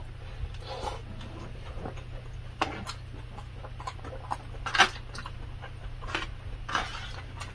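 Close-up eating sounds: chewing and mouth sounds, with a metal spoon and fork clicking and scraping against a black plastic takeout tray as rice and vegetable stew are scooped up, the sharpest click about five seconds in. A steady low hum runs underneath.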